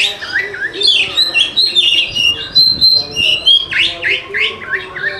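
Oriental magpie-robin (kacer) singing a loud, unbroken string of quick whistled notes and chirps that slide up and down in pitch. This is a lure song (pancingan) meant to set a quiet kacer singing.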